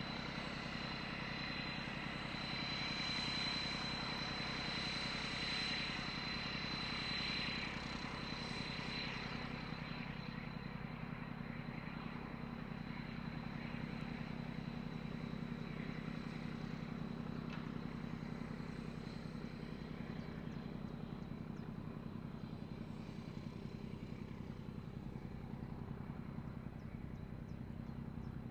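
Diesel locomotive engine running steadily as it hauls a passenger train, a low drone throughout with a high whine over it for the first several seconds. Faint insect chirps near the end.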